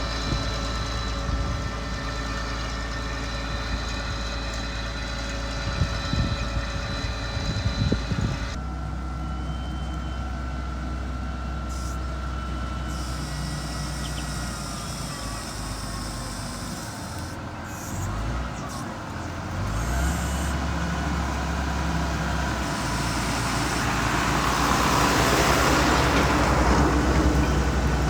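Mitsubishi MG430 motor grader's diesel engine running steadily at work. The sound changes abruptly about a third of the way in, and a rushing noise builds toward the end.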